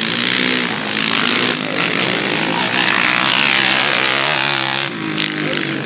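Several racing quad (ATV) engines revving hard. One passes close by and is loudest from about two seconds in, then falls away just before five seconds.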